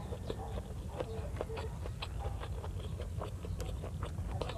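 Close-miked eating sounds: small wet clicks and smacks of chewing on rice and of fingers gathering sauced rice by hand, scattered irregularly over a steady low hum.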